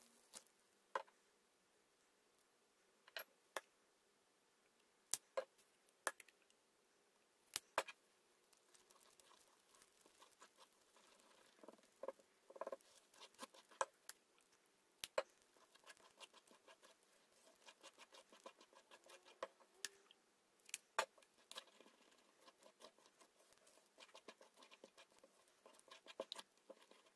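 Faint clicks and scrapes of a silicone spatula against a bowl while stirring a wet flour-and-water dough mixture. Scattered sharp knocks come first, then from about eight seconds in a denser run of quick clicking.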